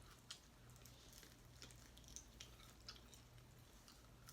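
Faint close-up chewing: soft, scattered wet mouth clicks of someone eating, over a low steady hum.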